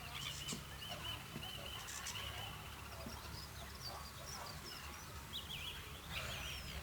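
Waterfront ambience: small birds chirping in quick repeated calls during the first two seconds and again near the end, over a steady low background rumble.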